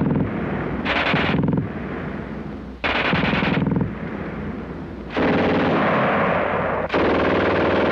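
Machine-gun fire as a sound effect: three short bursts about two seconds apart, then longer unbroken firing from about five seconds in, with a steady ringing tone under it.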